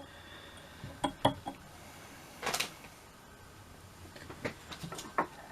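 A few light clicks and a brief rustle of hands handling fly-tying tools and materials at the vise.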